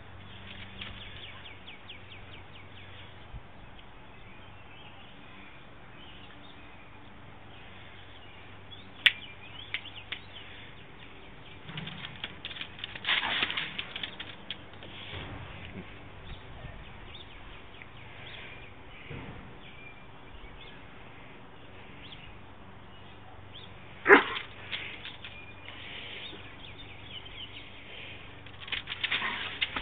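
A borzoi snapping its jaws at flies: two sharp snaps, about nine seconds in and again about twenty-four seconds in, with stretches of scuffling and rustling in between.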